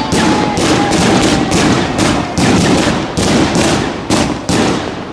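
Funke Blodtorst firework cake firing a rapid volley: shots launching and bursting overhead, about three sharp bangs a second with no let-up.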